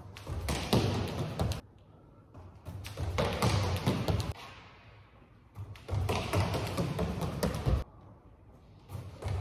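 Running footsteps of trainers slapping a smooth concrete floor during short sprints, echoing in an underground car park. Three quick runs of rapid steps, each lasting a second or two, with near-quiet gaps between them.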